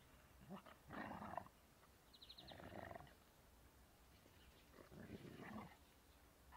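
A Hovawart and an English Setter puppy play-growling while they wrestle: three short bouts of rough growling, about a second each.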